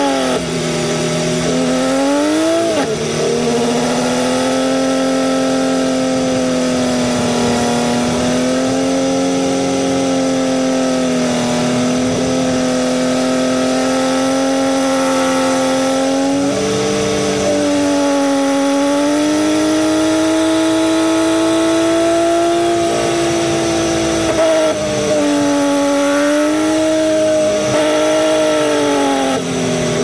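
Mack dump truck's diesel engine running under way, a steady drone whose pitch holds, then drops and climbs again as gears are changed on the 8-speed transmission: a shift about two seconds in, a step up in pitch about halfway through, and another sharp dip right at the end.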